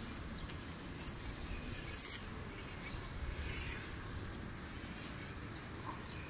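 Outdoor ambience: a steady low rumble, with one brief, sharp high clink about two seconds in and a few fainter high ticks.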